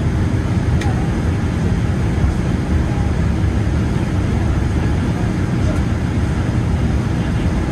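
Boeing 787-9 Dreamliner taxiing, heard inside the cabin by the window: a steady low rumble that does not change in level.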